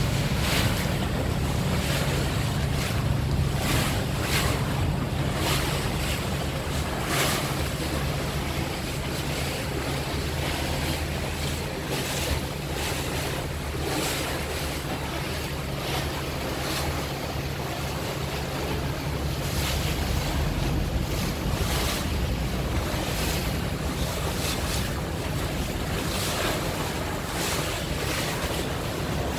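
Water bus under way: its engine drones steadily underneath water rushing past the hull, with wind gusting on the microphone.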